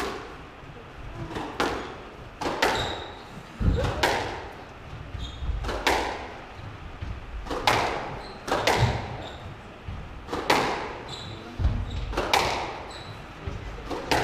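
Squash rally: the ball cracks off rackets and walls about once a second, each hit ringing in the enclosed court. Short high squeaks and low thuds from the players' shoes on the wooden floor come between the hits.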